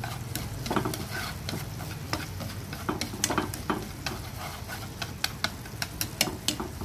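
Wooden spatula stirring and scraping through a chunky tomato sauce simmering and sizzling in a frying pan, with frequent irregular clicks of the spatula against the pan over a steady low hum.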